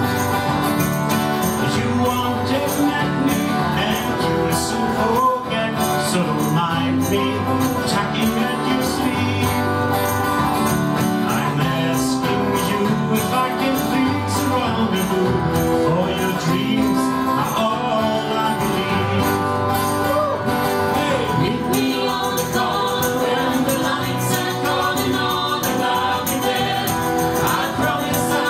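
Small live band playing an acoustic-guitar folk-rock song, guitars strummed under sung vocals, at a steady level.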